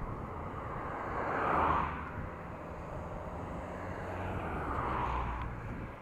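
Two motor vehicles passing, one swelling and fading about a second and a half in and another near five seconds, over a steady rush of road and wind noise.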